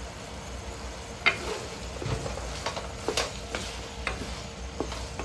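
Wooden spatula stirring chicken feet and livers in a pan of thickening adobo sauce, knocking and scraping against the pan several times from about a second in, the first knock the loudest, over a steady faint sizzle.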